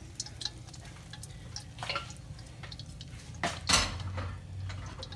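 Wooden spoon stirring fried potatoes and onions in a stainless-steel mesh strainer, with scattered knocks and clicks of the spoon and pan against the metal. The loudest knock comes about three and a half seconds in.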